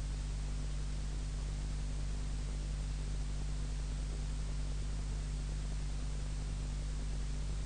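Steady hiss with a low, even hum beneath it: the recording's background noise, with no speech.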